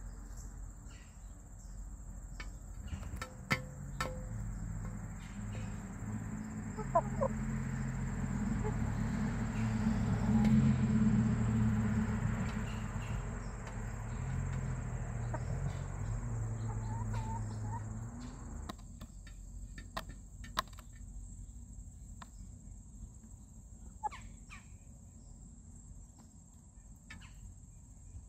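Hens clucking softly close by, over a steady high-pitched insect drone, with scattered sharp taps. A low rumble swells to its loudest about eleven seconds in and stops abruptly at about eighteen seconds.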